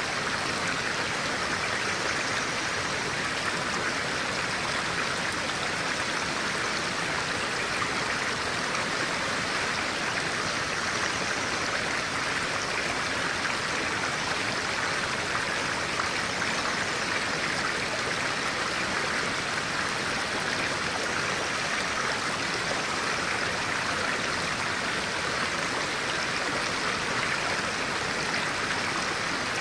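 Stream of clear water flowing steadily over rocks, an even rushing and babbling that does not change.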